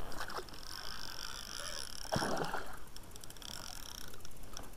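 Water lapping against a small boat on a lake, with a splash about two seconds in.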